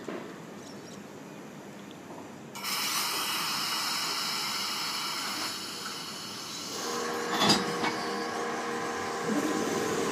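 S-set double-deck electric suburban train moving off from the platform: a sudden hiss of air starts about two and a half seconds in and carries on. A steady hum of the train's machinery joins near seven seconds, with a single knock shortly after.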